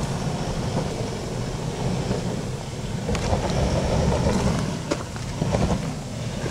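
Mitsubishi Challenger's engine working hard as the 4x4 climbs a steep rocky hill, its tyres scrabbling and spinning on rock and loose dirt, with a few sharp knocks from stones. The engine gets louder in the middle of the climb.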